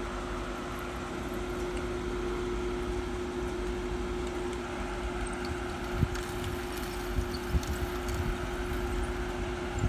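Steady hum of idling car engines. From about six seconds in, wind buffets the microphone in low thumps.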